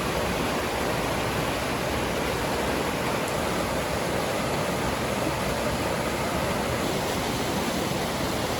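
Steady rush of water falling at a waterfall, an even hiss and roar.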